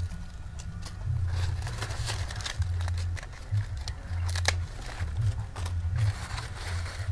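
Hand pruning shears snipping the leaves off young teak seedlings: several short, sharp snips, the loudest about four and a half seconds in, over a low rumble.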